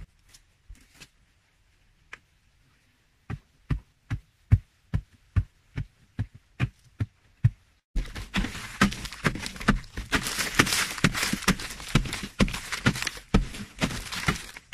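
Hand digging into compacted earth: a short tool strikes the tunnel wall about twice a second, then from about eight seconds in, close and much louder chopping and scraping with loose soil crumbling and falling.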